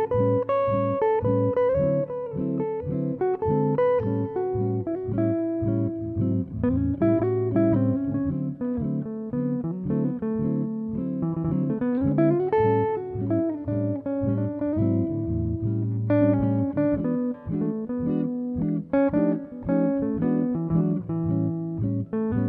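Background music led by plucked guitar, playing a steady run of notes.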